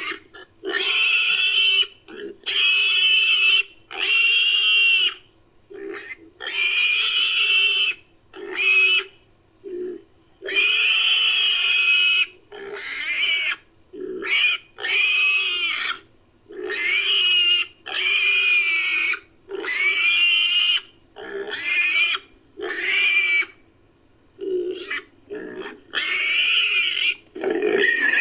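Pig squeals edited into a collared peccary sound effect: a run of about twenty shrill, pitched squeals, each under a second and a half, separated by short gaps.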